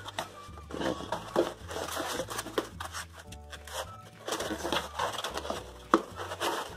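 White foam packing sheets being handled and lifted out of a cardboard box: irregular rustling and scraping of foam against cardboard, with a few brief squeaks.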